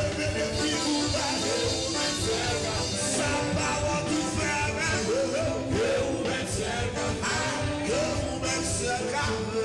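Live worship band music with drums, and a man singing lead into a microphone.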